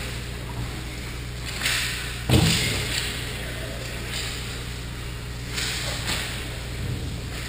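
Ice-skate blades scraping and hissing on the rink ice in short strokes, with one sharp thump about two seconds in.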